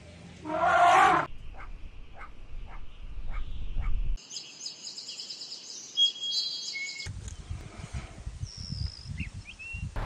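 A loud animal call lasting under a second near the start, followed by faint, evenly spaced ticks. From about four seconds in, birds chirp in a dense chorus; after about seven seconds, a few whistled bird notes sound over low rumbling noise.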